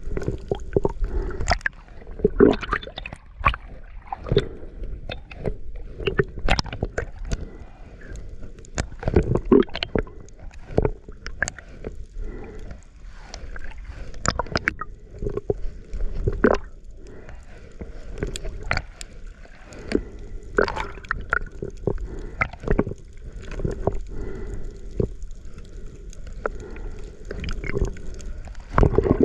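Underwater sound picked up by a camera in the water: muffled water movement and gurgling, broken by irregular sharp clicks and knocks about every second.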